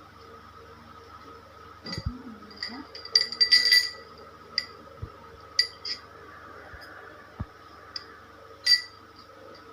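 A hard container being handled, clinking with a short ringing tone. There is a quick cluster of clinks about three to four seconds in, then several single clinks.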